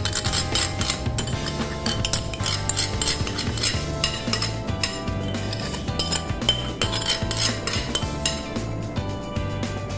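A utensil clinking and scraping against a dish, many short clicks over steady background music.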